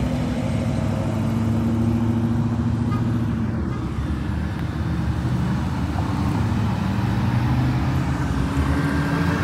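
Car engines and exhausts running with a steady low rumble as sports cars drive slowly past one after another, without hard revving.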